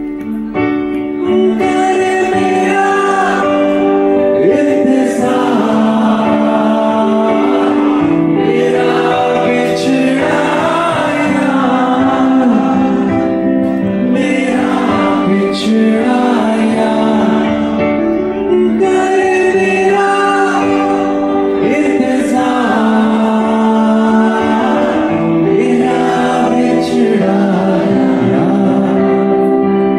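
Live band performance: a man singing into a microphone over keyboard and electric guitar, amplified through a PA.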